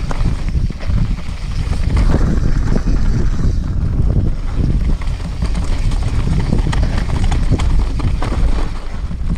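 Wind buffeting a camera microphone on a mountain bike riding down a rough dirt trail, with the steady rattle and knocks of the bike and its tyres jolting over bumps and roots.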